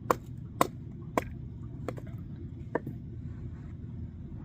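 Kindling being chopped: five sharp knocks of a blade striking wood, spaced about half a second to a second apart, over a steady low background rumble.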